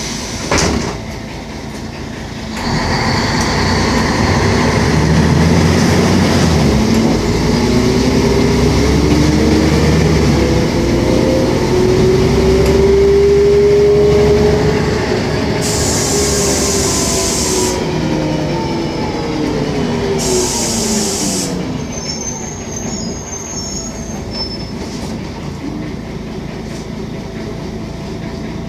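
Mercedes-Benz O500MA articulated bus on the move, its engine and drivetrain running with a whine that rises in pitch and then falls away. A thump about half a second in, and two short hisses of air a few seconds apart near the middle.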